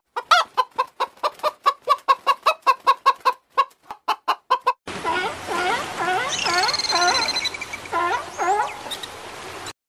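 A hen clucking in a rapid, even run of short clucks, about five a second. About five seconds in, it cuts to a fur seal colony: many seals calling at once, with bleats rising and falling in pitch over a steady hum, and one high whistling call in the middle.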